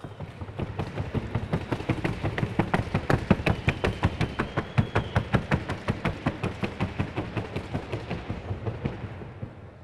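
Hoofbeats of a Colombian Paso mare in trocha gait on a wooden sounding board: a fast, even run of sharp knocks that grows louder as she comes on and fades out near the end.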